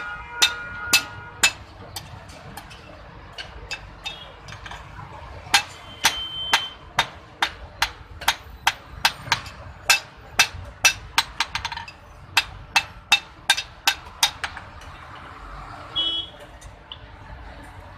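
Blacksmith's hammer striking iron on an anvil: sharp metallic blows, a few near the start, then a long run of about two to three a second through the middle, some followed by a brief ring. A steady low rumble lies underneath.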